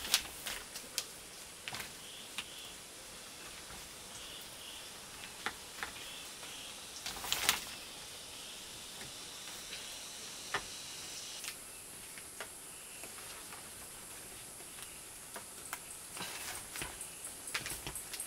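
Scattered light clicks and knocks over a steady high hiss, with one louder rustling scrape about seven seconds in and quick regular high ticks near the end.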